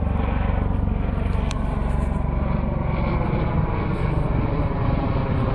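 Helicopter flying low overhead, its rotor beating with a steady rapid chop.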